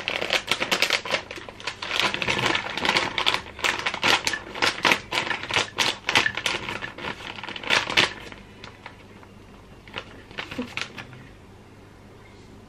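Haribo gummy bears poured from their bag into a clear container, a fast rattle of many small clicks as they land. The rattle thins out about eight seconds in, with a few more clicks a couple of seconds later.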